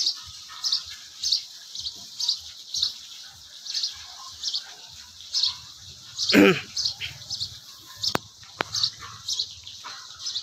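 A small bird chirping over and over, one short high chirp about every two-thirds of a second. A single louder, brief call that rises and falls in pitch comes a little past the middle, and two sharp clicks follow soon after.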